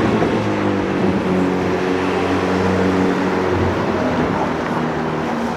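A car engine running at a steady pitch amid street traffic noise, easing off slightly near the end.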